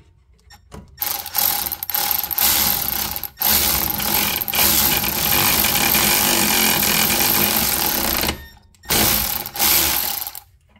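Ratchet wrench spinning a nut with fast, continuous ratcheting: one long run of several seconds, then a shorter second run near the end.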